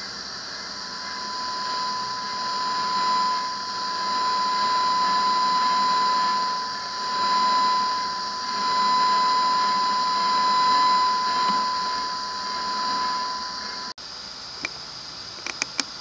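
Audio demodulated from a 2 GHz radio signal by an inductor with a capacitor to ground: a steady high tone over a hiss, swelling and dipping in loudness. It cuts off suddenly near the end, followed by a few clicks.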